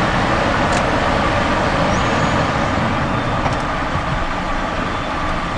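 Steady rushing noise of a Cessna Citation XLS in its initial climb after takeoff, heard inside the cockpit: its twin Pratt & Whitney PW545 turbofans at takeoff power mixed with airflow noise, with a faint steady whine running through it.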